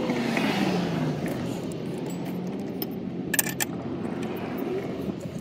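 Light metallic clinks of tools and hardware being handled, with a sharper cluster of clinks a little past halfway, over a steady background noise.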